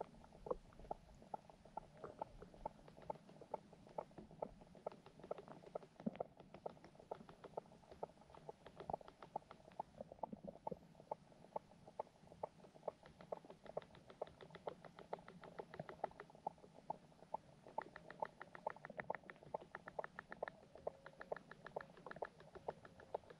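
Underwater sound in a carp and goldfish pond: a dense, irregular patter of small clicks and ticks, many a second, growing brighter and busier about halfway through.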